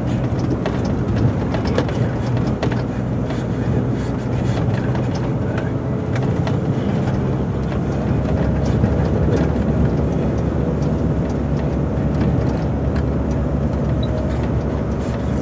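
Volvo FH 440 plow truck's diesel engine running steadily while driving, heard from inside the cab, with steady road and plow noise and scattered light clicks and rattles.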